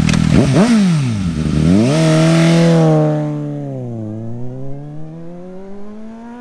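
Suzuki GSX-S750Z's inline-four through a Yoshimura AT2 slip-on exhaust, pulling away hard. The note climbs, drops back twice as the bike shifts up, and fades as it rides off while still accelerating.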